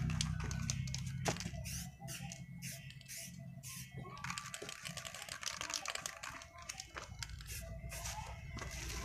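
Aerosol spray paint can in use: a quick run of short hisses and clicks, with a low steady hum beneath that fades after about the first second.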